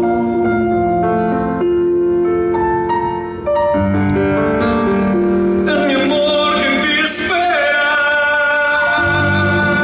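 Live band music: sustained keyboard chords moving between sung lines, the sound growing fuller and brighter a little past halfway.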